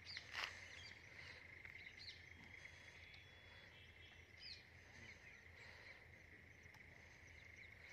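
Faint outdoor ambience: a steady high insect drone with scattered short bird chirps. A single brief knock about half a second in.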